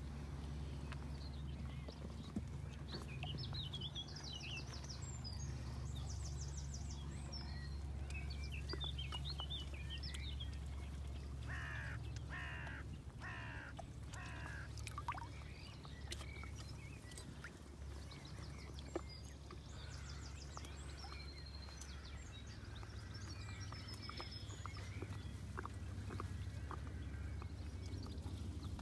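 Wild birds at a lakeside: small songbirds singing high trills and chirps on and off, and a little under halfway through, another bird gives a run of harsh calls. A steady low hum runs underneath.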